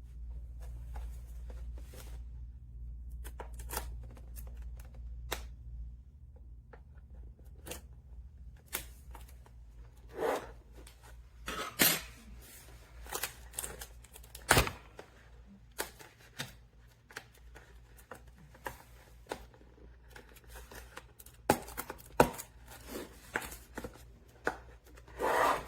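Irregular clicks, taps and knocks from a mechanical keyboard being handled close up, with a few louder knocks around the middle.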